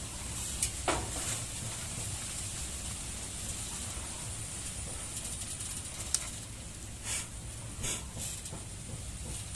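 Ballpoint pen scratching on paper in short drawing strokes, over a steady low hum.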